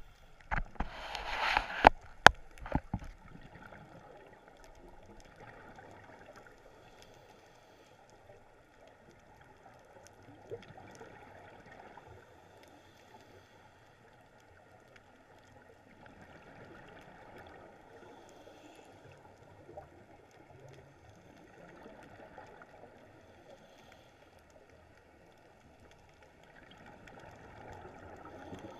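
Scuba divers' exhaled bubbles gurgling, heard underwater, swelling and fading every few seconds with each breath. Near the start a louder rush of bubbles comes with several sharp knocks.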